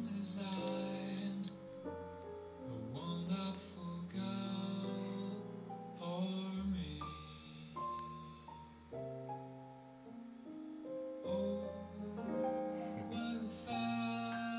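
Background music: a slow song with long held keyboard notes and singing.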